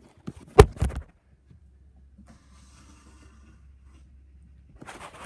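Handling noise from a tablet's built-in microphone: two loud knocks about half a second in, then faint rubbing over a low hum, and a brief scuffle near the end as the device is moved with its lens covered.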